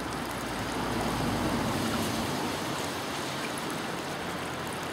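Small garden-pond waterfall: water running steadily over stepped stone ledges and splashing into the pond.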